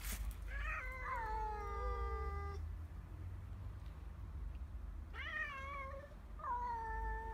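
Two male cats howling at each other in a standoff: one long drawn-out yowl of about two seconds, then after a pause two shorter yowls near the end.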